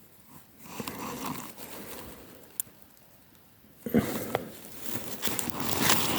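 Rustling handling noise with a few small sharp clicks as small metal buckle pieces are worked together in the hands close to the microphone. It comes in two stretches, a short one about a second in and a louder one over the last two seconds.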